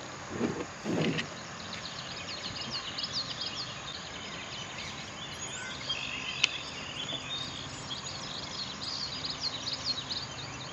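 Many birds chirping in quick, repeated short notes over a steady outdoor background. There are a couple of brief low muffled sounds about a second in and a single sharp click near the middle.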